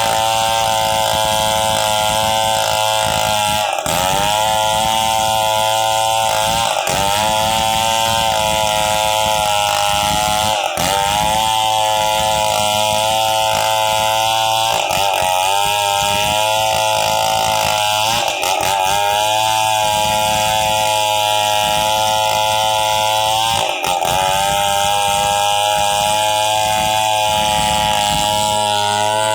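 Chainsaw engine running at high speed, its pitch dipping briefly and recovering every three to five seconds.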